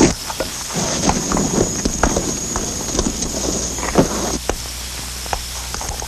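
Artillery crew working a muzzle-loading cannon: irregular knocks, clacks and footsteps as the gun is handled and made ready, with a faint steady high whine that fades out about two-thirds of the way through.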